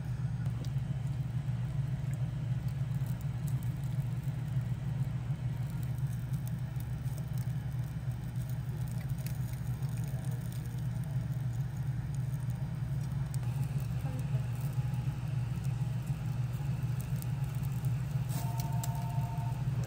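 A steady low machine hum from the automatic skewer-rotating charcoal grill and its ventilation, with faint scattered ticks and crackles over it. A brief pair of high steady tones sounds near the end.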